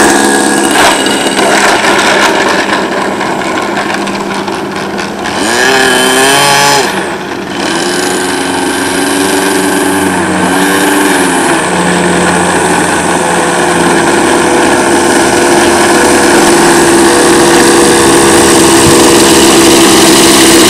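Remote-control P-51 Mustang model plane's engine running steadily at high pitch, its pitch swooping up and down as the plane passes and changes throttle, most clearly about six seconds in and again around ten seconds.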